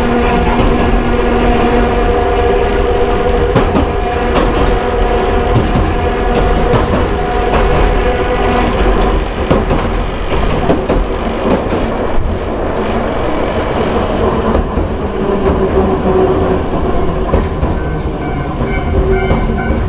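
Hankai Tramway Mo161-class tram running, its nose-suspended (tsurikake) traction motors giving a steady hum over the wheel-on-rail noise. The motor tone fades away about halfway through, and a higher steady tone comes in near the end.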